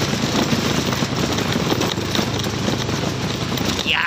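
Small motorcycle engine running steadily at low speed over a potholed dirt road, with knocks and rattles from the bike jolting on the bumps. A brief high falling squeak near the end.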